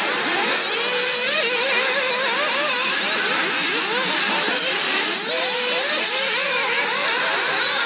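A pack of nitro RC cars racing. Their small two-stroke glow engines rev and ease off over and over, several pitches overlapping and sliding up and down as each car takes the straights and corners.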